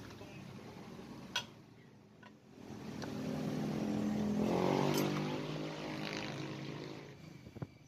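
A passing vehicle engine: a hum that swells over about two seconds, peaks, then fades away. A few light metallic clicks sound before, during and after it.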